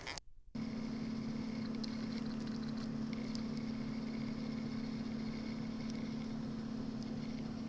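A steady machine hum with one strong low tone, starting after a brief gap near the start.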